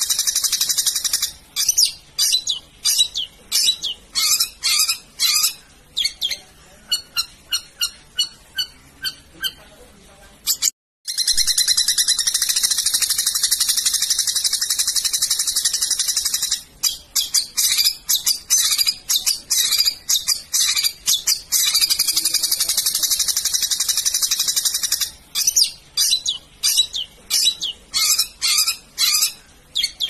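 Long-tailed shrike (cendet) singing a high, shrill chatter. Long unbroken runs alternate with spells of separate sharp notes about three a second. The sound cuts out for a moment about a third of the way in.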